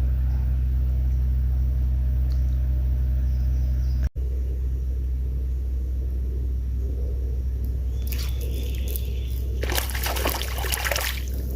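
River water running with a steady low rumble. From about eight seconds in comes roughly three seconds of splashing and sloshing water.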